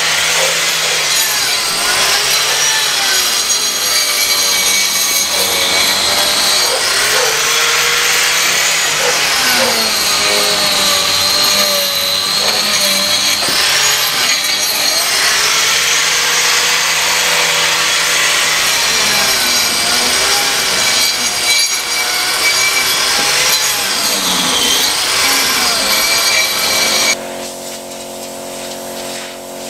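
Angle grinder grinding old cement render off brick infill panels, a harsh scraping noise over a motor whine that sags and recovers in pitch as the disc bites and eases off. Near the end it cuts to a quieter, steady machine hum.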